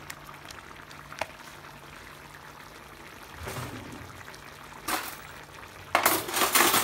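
Chicken tikka masala sauce simmering in a wide pan, bubbles popping with small scattered ticks. Louder handling noises come in about three and a half and five seconds in, and loudest in the last second.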